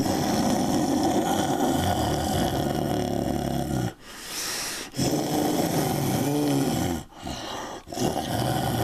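Monster growling sound effect for a giant ant: a rough, gravelly growl in three long stretches, with a short hiss after the first.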